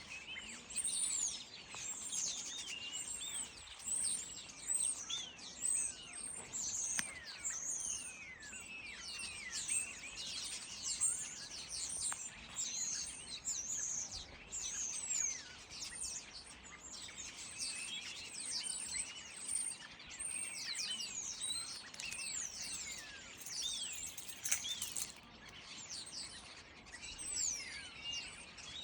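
A flock of common starlings chattering and whistling together, many overlapping calls and descending whistles with no let-up.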